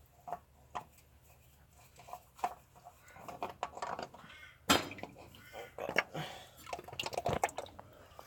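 Irregular metallic clinks, knocks and scrapes of a removed oil filter and other oily engine parts being handled and set down, the loudest knock a little past halfway.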